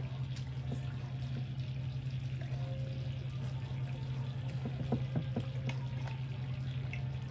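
A drink bubbling steadily, fizzing with a fine crackle, over a steady low hum. Scattered soft clicks and taps come from food being handled at the table.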